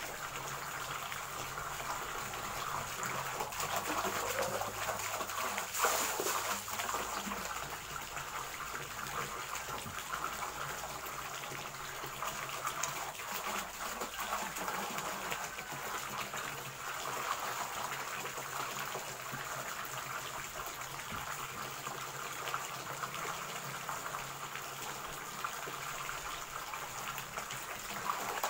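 Steady stream of water pouring from a pipe into a full concrete tank, with splashing as a person scoops and throws water in the flow.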